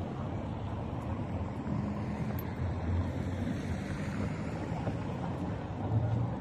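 Steady low rumble of city car traffic.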